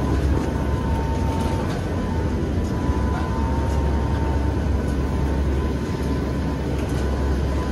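Cabin noise inside a NOAA WP-3D Orion turboprop hurricane-hunter aircraft flying through turbulence in the eyewall of a hurricane: a loud, steady low engine and propeller drone with a thin steady whine above it and occasional faint rattles.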